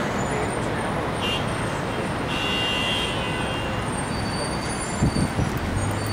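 Steady city traffic noise with a brief high-pitched squeal about two and a half seconds in, and a few low buffets near the end.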